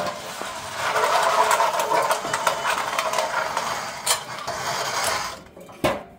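Stock steel exhaust system of a Dodge Durango R/T, mufflers and long pipes, dragged out across a concrete driveway. The metal scrapes and rattles steadily for several seconds, then stops, with a single clank near the end.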